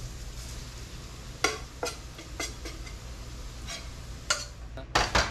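Hot oil sizzling steadily in a cast iron skillet as hush puppy batter is spooned in, with several sharp clinks of the spoon against the metal pans.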